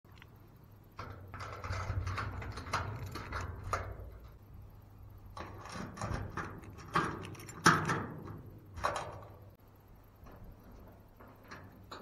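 A bunch of keys jingling, and a key scraping and clicking into the lock of a steel garage door, in two spells of metallic clicks and rattles; the sharpest clicks come about seven and eight seconds in.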